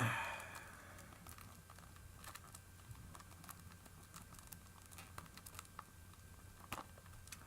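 Plastic wrap and a security sticker being picked and peeled off a Blu-ray case: a sharp snap and short rip right at the start, then faint crinkling and small clicks of fingers working at the plastic.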